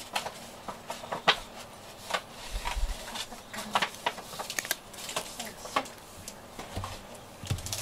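A cat licking a soft treat off a ceramic dish: quick, irregular wet clicks and smacks of the tongue.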